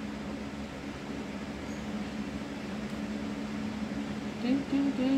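Coloured pencil scratching on paper, over a steady low electrical hum in the room. A woman's voice comes in briefly near the end.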